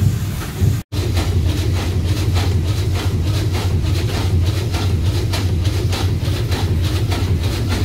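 Multi-cylinder vertical marine steam engine of a steamboat running under steam, its rods, cranks and valve gear beating out a quick, even rhythm. The sound cuts out for an instant about a second in.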